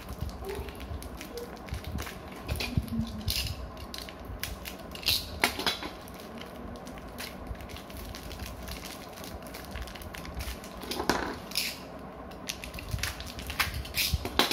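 Small plastic packaging being crinkled and rustled by hand while a Beyblade's parts are unpacked, with scattered crackles and light clicks and a few louder crackles about five and eleven seconds in.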